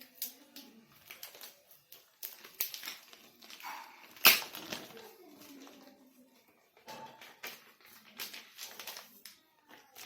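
Packaging being opened by hand, crinkling and rustling in a run of short irregular crackles, with one sharp louder crackle about four seconds in.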